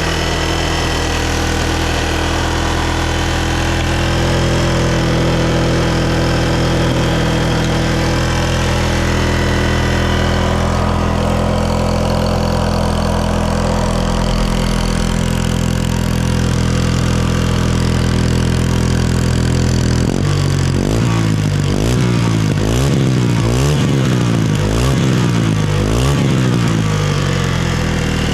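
Yamaha Serow 225W's air-cooled single-cylinder four-stroke engine idling steadily, then revved in several quick throttle blips from about 20 seconds in. It revs up cleanly with no abnormal mechanical noise, though there is an exhaust leak at the exhaust manifold joint.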